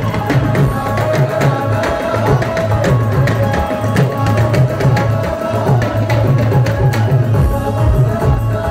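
Instrumental qawwali music: a harmonium holding sustained notes over a steady, rhythmic tabla beat with frequent sharp strokes.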